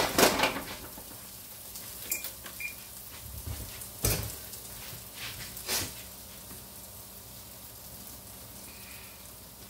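Metal sheet pan set down on a glass-top stove with a sharp clatter that rings briefly. A few lighter knocks follow, then a heavier thud about four seconds in and another shortly after, over a faint steady hum.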